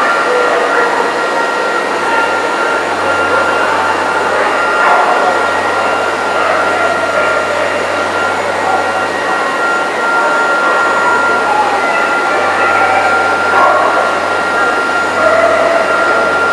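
Constant hubbub of many voices echoing in a large exhibition hall, with a steady high whine and a low hum running underneath.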